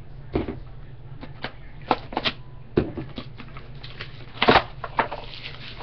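Trading card pack being opened and the cards handled: irregular crinkles and clicks of wrapper and card stock, the loudest about four and a half seconds in.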